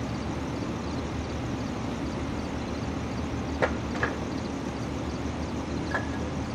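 Steady low engine rumble, with three short sharp knocks: two about three and a half and four seconds in, and one about six seconds in with a brief ring.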